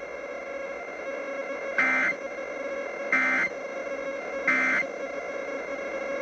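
Emergency Alert System end-of-message signal: three short, buzzy bursts of digital data tones about 1.3 seconds apart, over a steady background hum. The bursts mark the end of the alert.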